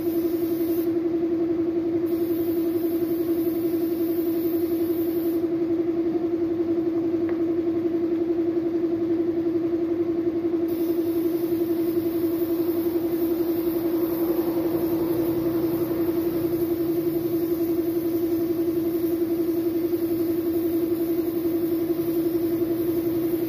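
Air spray gun hissing as it sprays paint, the hiss stopping twice when the trigger is let go, once briefly about a second in and once for about five seconds. Under it runs a steady, loud motor hum on one pitch.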